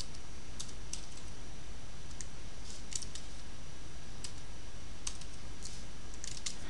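Computer keyboard keystrokes, a few at a time and irregularly spaced, as numbers are typed in, over a steady low hum.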